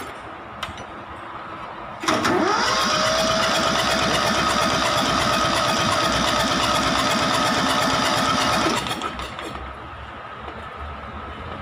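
Kubota D950 three-cylinder diesel being turned over by its electric starter. About two seconds in, a starter whine rises in pitch and levels off. Under it the engine turns with a steady, evenly pulsing churn for about six and a half seconds, then it stops suddenly.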